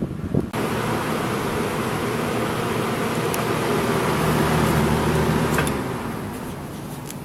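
Lasko Model 3713 20-inch box fan running: steady rush of air from the blades over a low motor hum. It comes in suddenly about half a second in, and after a click near six seconds it falls to a quieter, lower level.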